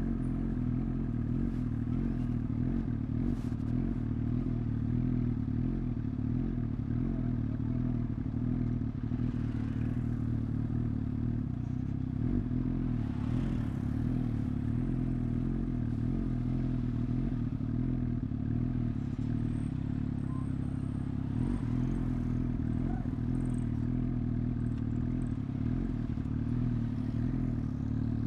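Suzuki GSX-S1000's inline-four engine running at a steady speed while cruising, an even low drone that holds one pitch with no gear changes.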